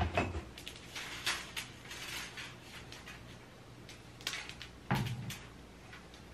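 Light metallic clicks and rattles of a black two-tier metal mesh basket organizer being handled and set in place, with a louder knock about five seconds in.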